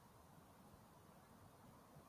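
Near silence: a faint, even background hiss.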